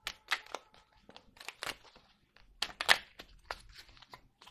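Small oracle card deck being shuffled by hand: quick papery slaps and riffles of cards in irregular flurries, the loudest about three seconds in.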